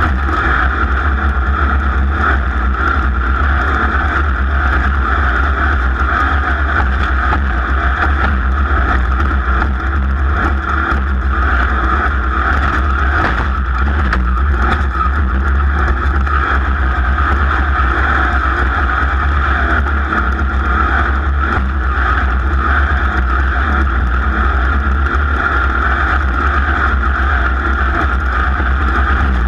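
Race vehicle's engine running steadily and hard through a race lap, heard on board with a strong low rumble underneath.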